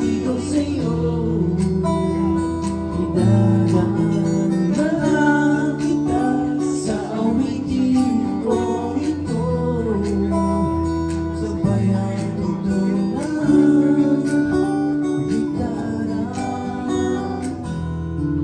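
Music with acoustic guitar and a singing voice.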